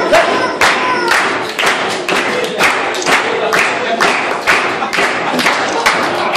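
A few people clapping in a steady rhythm, about two claps a second, along with music.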